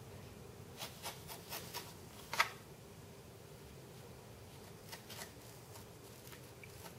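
Blade cutting through the end of a strip of masking tape on a moulded wing. A few light scratchy clicks come in quick succession about a second in, then one sharper click, and two fainter ones around five seconds.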